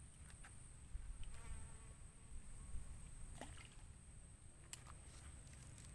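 Faint steady high-pitched insect drone, with a low rumble underneath and a few light clicks.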